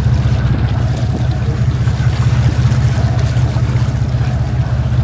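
Sportfishing boat's engine running steadily with a deep, even drone, with wind and water noise over it.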